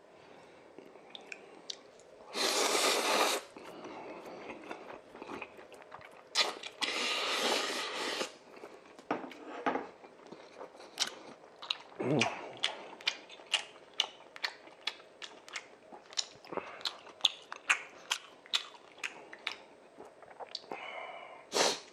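A person slurping instant black-bean-sauce noodles in two long slurps, about two seconds in and again about six and a half seconds in. Then close-up chewing with many quick wet mouth clicks.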